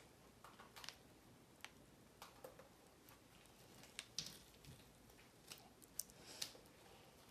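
Near silence with a few faint, scattered crinkles and clicks from fingers holding a plastic bag of magnets against magnetic slime.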